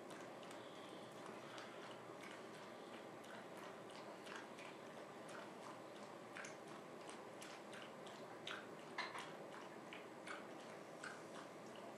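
Small dog lapping tea: a run of faint, irregular wet clicks of the tongue, coming more often from about four seconds in.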